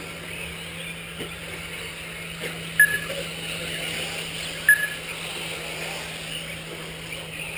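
RC short-course race cars running around the track, a steady whine in the background, broken twice by a short, sharp electronic beep about two seconds apart, typical of a lap-timing system as a car crosses the line.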